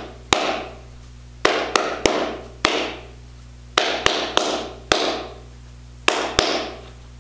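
Hands clapping a practice rhythm of a quarter note, a half note and two eighth notes, repeated. About eleven sharp claps in uneven groups, each ringing briefly in a small room.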